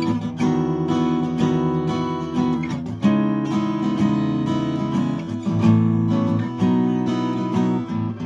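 Steel-string acoustic guitar strummed, ringing chords that change every couple of seconds.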